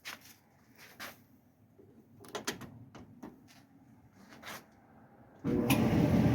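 A few light clicks and knocks, then about five and a half seconds in a Kenmore electric dryer starts up with a sudden jump to a steady running sound of its motor and turning drum, with no squeaks.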